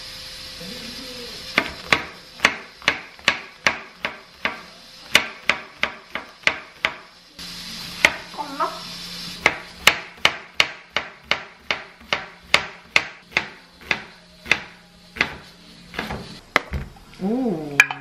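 Chef's knife chopping green onion and then onion on a wooden cutting board: crisp chops at a steady pace of about two a second, starting about a second and a half in.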